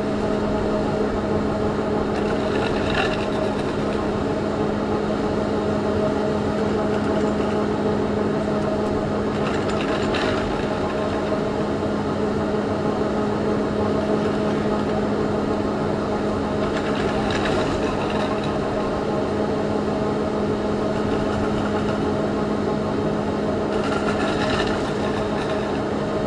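Drive machinery of a Garaventa T-bar ski lift's bottom station running: a steady electric hum with a constant tone. A brief rattle comes about every seven seconds, in step with the T-bar hangers passing through the station.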